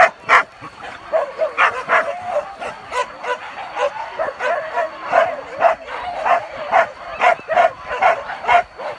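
Hunting dogs barking and yelping in rapid, repeated, overlapping calls, as a pack baying while hunters close in on a wild boar.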